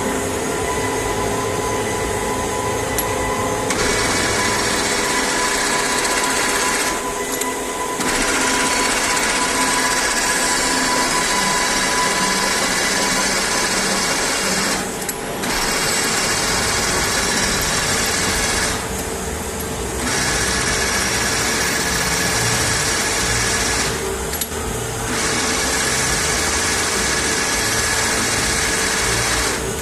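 Soviet 16K20 engine lathe running under power: a steady mechanical gear whine with a bright hiss on top. The hiss cuts out for about a second four times as the machine's drive changes.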